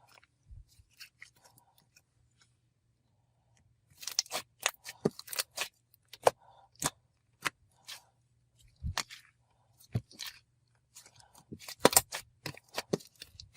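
Slime being squeezed and poked by hand, giving sharp, irregular sticky clicks and pops. They are sparse and faint at first, then come thick and fast from about four seconds in.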